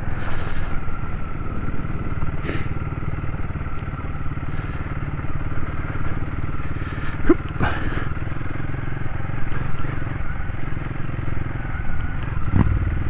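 Royal Enfield Himalayan 450's single-cylinder engine running steadily as the motorcycle is ridden off-road, with a few sharp knocks and clatters from the bike going over rough ground.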